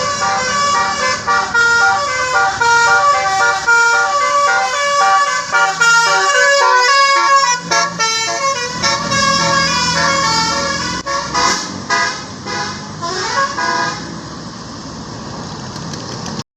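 Basuri telolet musical bus horn playing a fast melody of stepped tones over vehicle noise. The melody stops about fourteen seconds in, leaving the steadier vehicle noise.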